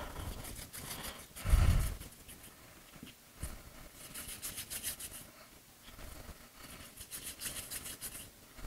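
Hands working yeast dough on a floured surface: a dull thump about a second and a half in, a short knock, then two bouts of rubbing and scraping.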